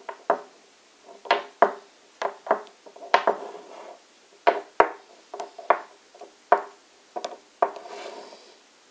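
Thick copper tube and rare earth magnet knocking and sliding on a wooden tabletop: a run of irregular sharp knocks, each with a short ring, and a couple of brief scrapes.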